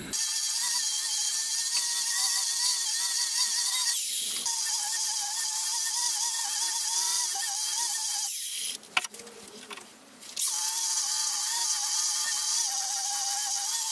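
Electric random orbit sander running against a hardwood cabinet panel: a steady high whine over a hiss. The sound drops away for about two seconds past the middle, then starts again.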